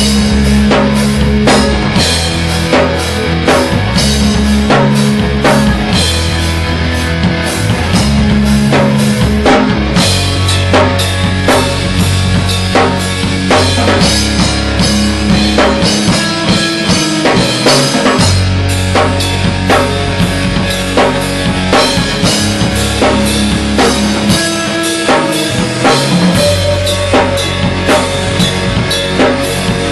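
Heavy metal band playing live: drop-tuned distorted electric guitar and bass over a drum kit with a driving kick drum, the low riff notes held and shifting every second or two.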